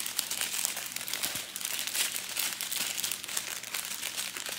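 Plastic drill bags and their clear plastic strip crinkling as they are handled, a continuous irregular crackle.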